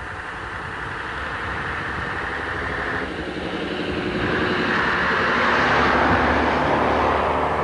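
RT double-decker bus's diesel engine running as it approaches, growing steadily louder and loudest about six seconds in as it passes close by.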